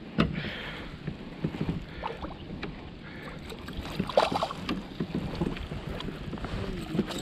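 A hooked smallmouth bass splashing and thrashing at the surface beside a kayak, loudest about four seconds in, among small water sounds against the hull. A sharp knock sounds right at the start.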